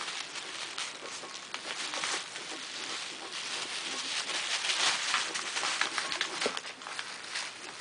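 Thin plastic shopping bag crinkling and rustling continuously as two ferrets wrestle and roll about on it, a dense crackle of many small ticks that is busiest in the middle.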